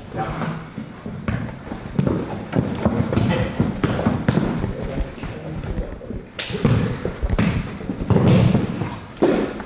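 Soccer balls being kicked and bouncing off the floor in repeated thuds, with players' voices between them.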